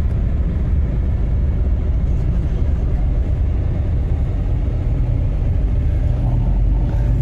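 Steady low rumble of a car on the move, engine and road noise with no change in pace.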